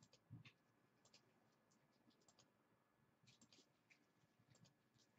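Near silence with faint, scattered small clicks and light scratching.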